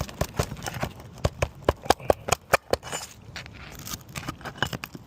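Hand tool working under roof shingles to free them and their nails: a quick, irregular string of sharp knocks and clicks, thickest in the middle.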